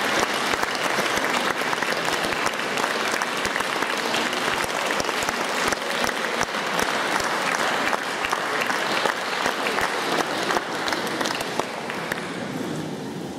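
Audience applauding, a dense patter of many hands clapping that thins out a little near the end.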